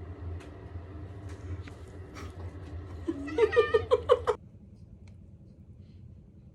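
A quick run of about seven short, high-pitched voiced calls lasting just over a second, about halfway through, over a low steady hum with a few faint clicks; it then drops to a quiet hiss.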